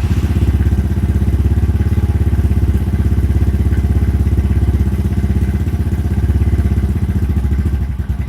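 Guerrero GXR250 motorcycle engine idling steadily through a freshly finished home-made exhaust silencer, with an even low pulsing beat.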